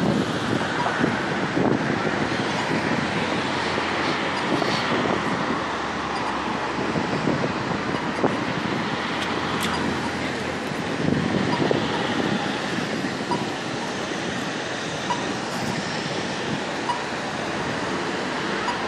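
Steady city street traffic noise from cars on a busy road, with a low shifting rumble.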